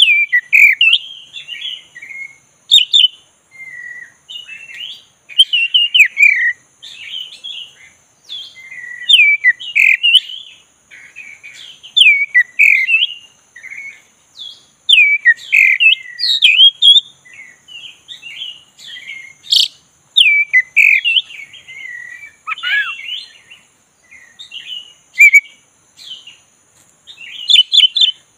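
Black-breasted Oriental magpie-robin singing: loud, varied whistled phrases with sweeping and scratchy notes, one after another with short pauses.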